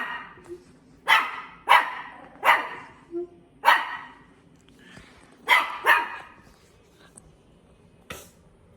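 A dog barking: about eight sharp single barks at uneven intervals, some in quick pairs, with a pause of about two seconds before one last bark near the end.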